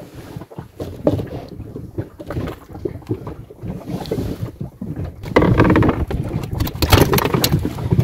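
Rustling and scattered knocks from a freshly caught cod being unhooked and handled on the floor of a small inflatable boat, with wind on the microphone. The noise gets louder a little past halfway.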